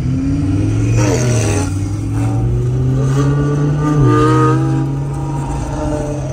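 Sports-car engines running and revving, heard from inside a car's cabin. The engine note glides up and down, and the low drone drops sharply about four seconds in.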